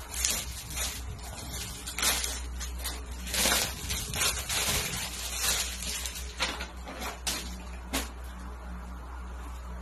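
Plastic packaging rustling and crinkling in irregular bursts as a bagged item is handled and opened, over a steady low hum.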